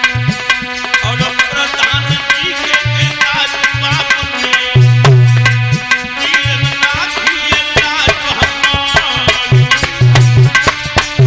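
Indian devotional music: tabla playing a fast rhythm with deep, ringing bass-drum strokes, under sustained held chords and a gliding melody.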